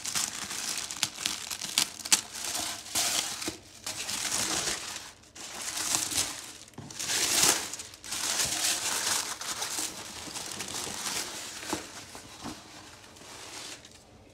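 Tissue paper rustling and crinkling as hands unfold and move it, in an irregular string of bursts that grows quieter near the end.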